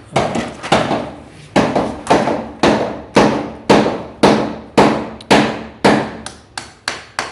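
Hammer blows at a steady pace of about two a second, each with a short ring, as the drilled termite-treatment holes in the floor are closed up.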